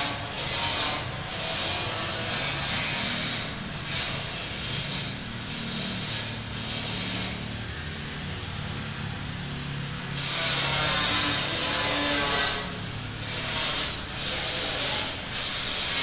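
Rough scraping strokes on wood, coming in irregular strokes about half a second to a second long, with one longer stretch of scraping about ten seconds in. A faint high whine runs underneath.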